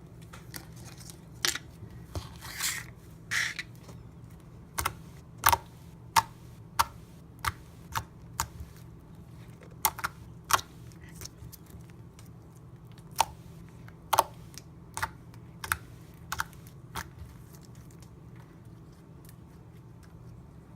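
Slime being squeezed and poked, giving sharp, irregular clicks and pops about once a second, with two longer squelches a few seconds in.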